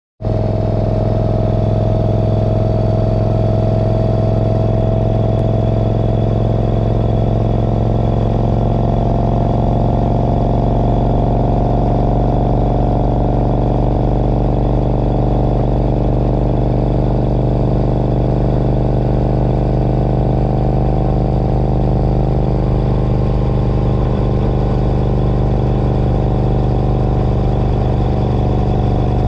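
Morgan 3 Wheeler's air-cooled S&S V-twin running at a steady cruise, heard from the open cockpit: a steady low drone whose pitch barely changes.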